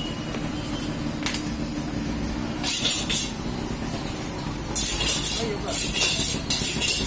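Fishmonger's knife making short rasping scrapes: one a little under three seconds in, then several more in the last two seconds, over a steady low background hum.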